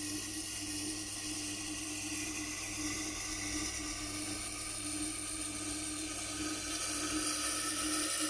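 Tormek wet grinder running with a steady motor hum, while a slicing cleaver's steel edge is drawn across the turning aluminum oxide grindstone in a light grinding pass, giving a steady hiss of steel on stone.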